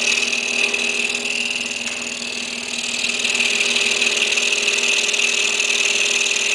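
Excalibur scroll saw running with a steady whine, its fine 2/0 reverse-tooth blade cutting slowly along a tight curve in maple. It gets a little louder about three seconds in.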